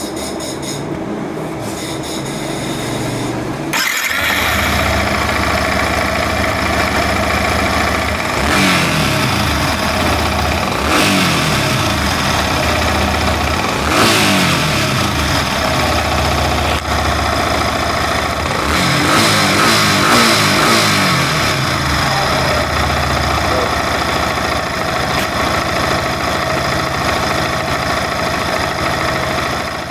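Yamaha R15 V3's 155 cc single-cylinder engine starting about four seconds in, then idling with several quick revs. The engine has just had its valve clearances reset after the exhaust valves were found set too tight.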